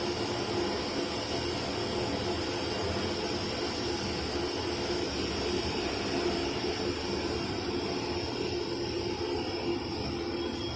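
Steam boiler running with a steady, even rushing noise and a faint hum.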